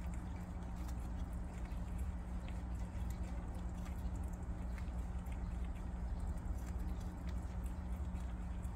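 Prairie dog chewing a green unripe jujube: small crisp crunching clicks come irregularly over a steady low hum.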